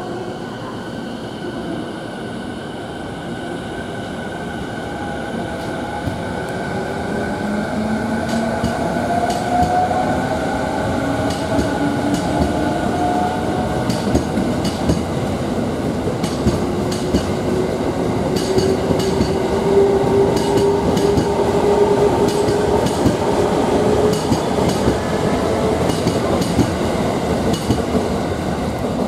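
E217 series electric train's Mitsubishi two-level IGBT VVVF inverter whining as it pulls away, with several tones rising slowly in pitch and growing louder as the train accelerates. From about a third of the way in, the wheels click regularly over rail joints.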